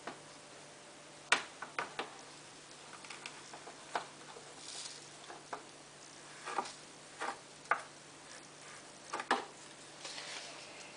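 Irregular plastic clicks and light knocks from handling a stain-remover tub, its scoop and the washing machine's detergent dispenser drawer while powder is loaded into the compartments. The sharpest knock comes about a second in, with more scattered taps after it.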